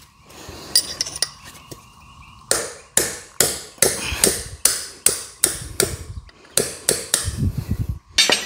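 Hammer tapping a punch against a rusty, sticking spool in a John Deere 3038e rock shaft valve body to work it loose. A steady run of sharp metallic strikes, about two to three a second, starts a couple of seconds in.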